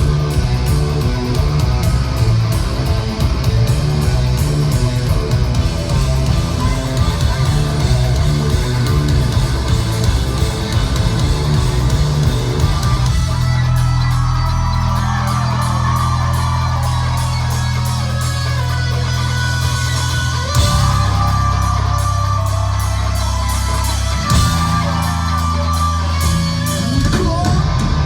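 Rock band playing live, with distorted electric guitars, bass and drums. A fast, chugging rhythmic section gives way about halfway through to long held bass notes under a bending lead guitar line.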